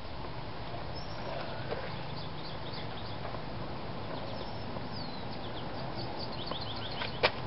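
Small birds chirping over a steady open-air background, and about a second before the end a single sharp snap as a disc golf drive is thrown and the disc leaves the player's hand.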